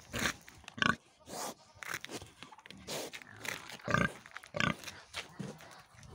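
Wild boar grunting close up, a series of short grunts at irregular intervals.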